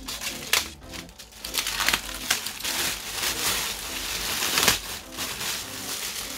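Thin plastic bag crinkling and rustling in irregular bursts as hands pull it off a boxed speaker, loudest in the middle.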